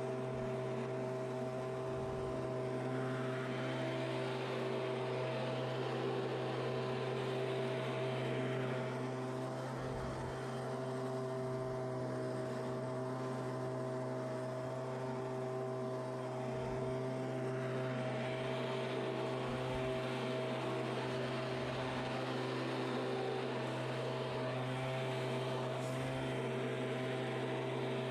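Stihl two-stroke handheld leaf blower running steadily: a constant engine tone under a rush of air.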